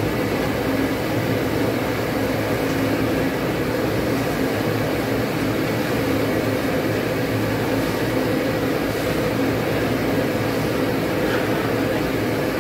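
A loud, steady mechanical hum with a low drone.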